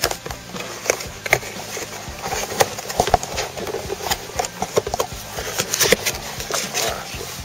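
Cardboard packaging box being handled and pulled apart by hand: irregular taps, knocks and scrapes of cardboard.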